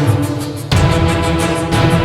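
Background music: a dramatic soundtrack with a steady beat and sustained low tones, moving into a louder section about two-thirds of a second in.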